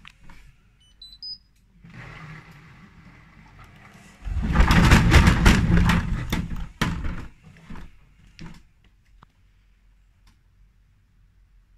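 Hotpoint Ariston front-loading washing machine with an unbalanced load, its tachometer disconnected and one shock absorber removed: the drum turns and the machine knocks, rising to a loud burst of rushing noise and rapid knocking for about three seconds in the middle, then a couple of single knocks before it goes quiet.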